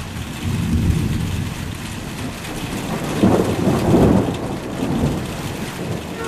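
Thunder rumbling, swelling to its loudest about three to four seconds in and then fading, over steady rain.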